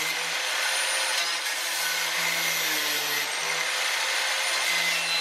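Angle grinder running steadily, cutting metal under a BMW E30: an even grinding hiss with a thin high whine.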